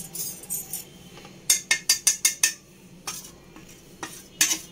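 Kitchenware clinking and tapping as dry spices are tipped from a dish into a bowl of flour: a quick run of taps about a second and a half in, then a few single taps, over a faint steady hum.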